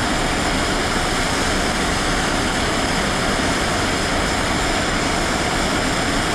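Handheld gas torch burning with a steady hiss and a faint high whistle, its flame heating a metal spade tool red-hot for plastic welding.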